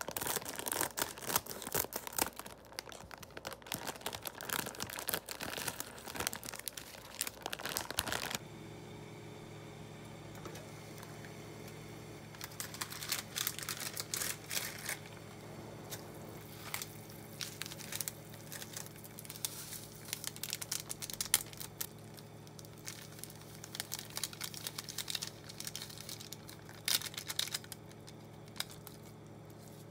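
Plastic instant-noodle packet (Nongshim Neoguri) crinkling as it is handled and cut open with scissors, then seasoning sachets crinkling and tearing in short bursts. From about eight seconds in, a steady low hum runs underneath.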